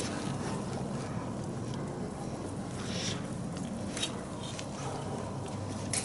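A few light clicks and taps of a motorcycle starter motor being eased into place against the engine, over a steady low background hum.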